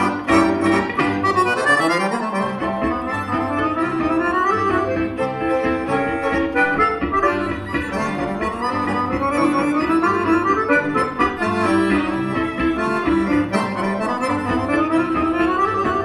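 Bayan (Russian button accordion) leading a small chamber ensemble of violins, clarinet, piano and double bass in a waltz, played live.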